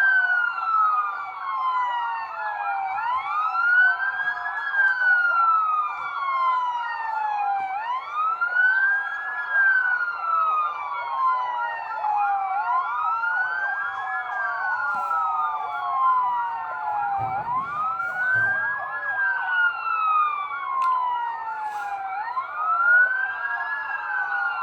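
Emergency-vehicle siren wailing: a slow wail that rises quickly and falls away, repeating about every four and a half seconds.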